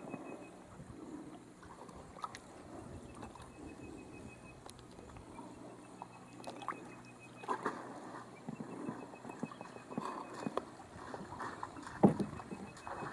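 Wooden canoe paddled along, water lapping and small knocks of the paddle on the hull, with one louder knock near the end. A faint high trill repeats in the background.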